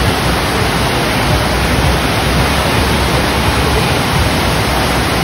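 Steady rush of water pumped up the ride surface of an artificial standing-wave surf machine, a loud even noise without a break.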